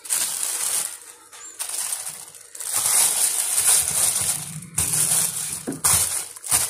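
Plastic cover crinkling and rustling as it is pulled and pressed over a glass bowl of oiled dough, in several bursts a second or two long.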